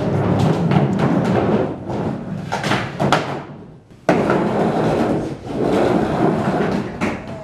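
Music with a percussive beat.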